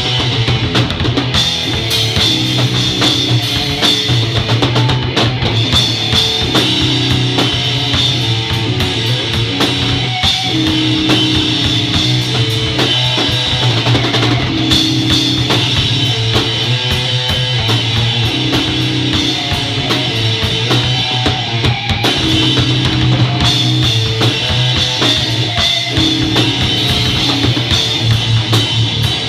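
A drum kit played continuously and loudly, cymbals and bass drum together, along with a rock song that has guitar and bass holding sustained notes.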